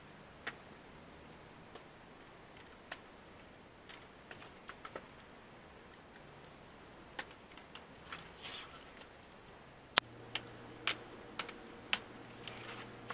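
Scattered light plastic clicks and taps of a laptop being handled while its screen assembly is pried free with a plastic pry tool. A sharp click comes about ten seconds in, and after it a faint low hum sits under the clicks.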